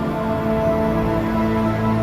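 Slow ambient music with long, held tones.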